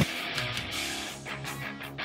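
Background music led by a plucked electric guitar.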